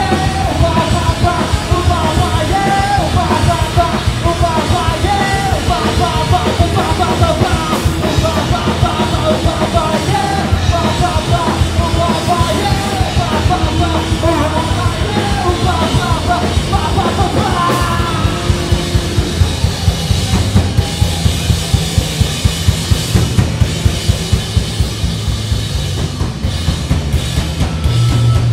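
Live rock band playing loud through a club PA: drums, guitars and bass. After about 18 seconds the wavering melodic line drops out and regular drum hits come to the fore.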